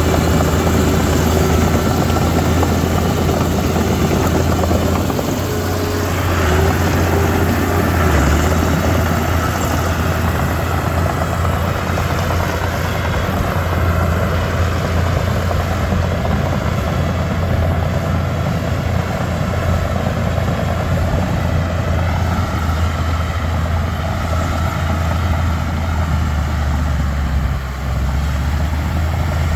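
Diesel engine of a Komatsu D31P crawler bulldozer running steadily with a deep, low drone.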